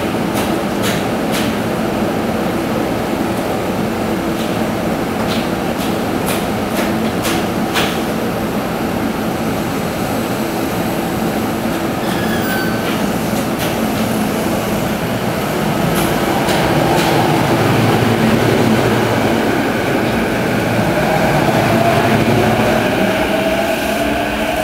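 JR Chuo Line E233-series electric train standing at a station platform with clicks and knocks as its doors close, then pulling away: low rumble grows from about two-thirds of the way in and the traction motors' whine rises in pitch in the last few seconds.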